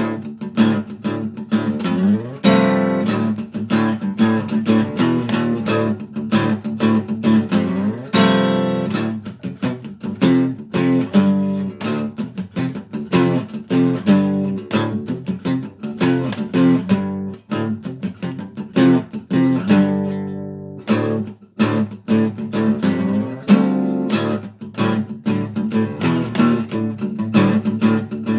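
Steel-string acoustic guitar played solo: a fast picked riff repeated over and over, with a few louder strummed chords left to ring.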